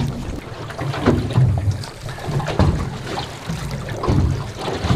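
Wind buffeting the microphone and sea water slapping against a small aluminium boat's hull, in uneven surges and knocks.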